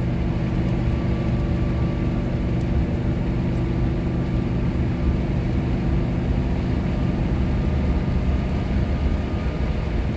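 Cab noise of a Workhorse chassis under way: the 8.1-litre Vortec V8 running steadily at raised revs under load in fourth gear after a downshift on a slight climb, over road and wind noise.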